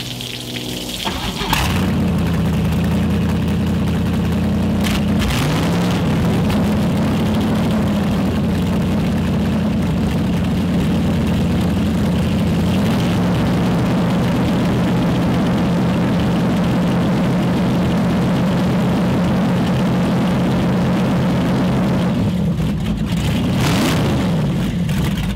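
Boat engine catching about a second and a half in, then running steadily at idle, with brief changes in pitch around five seconds in and again near the end.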